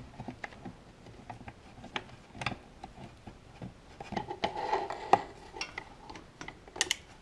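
Hands working around a motorcycle's exhaust header pipes and fittings: scattered light metallic clicks and taps, with a stretch of rubbing and scraping about four seconds in.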